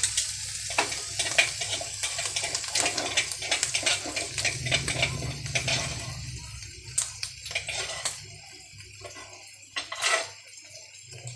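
Spatula stirring and scraping clam meat in a coated frying pan, with the oil sizzling and crackling. The stirring clatter stops after about six or seven seconds, leaving a quieter sizzle with a few scattered taps.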